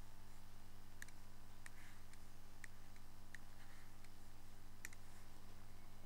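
A few faint, sharp clicks at irregular moments, about five in all, over a steady low hum.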